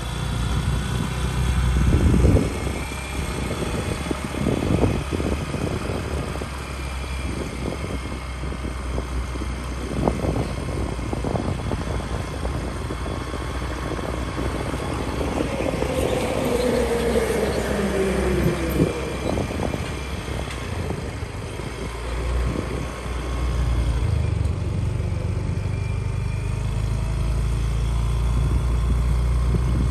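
Vehicle ride: a steady engine and road noise under heavy, gusty wind rumble on the microphone. About halfway through, a tone falls in pitch over a few seconds.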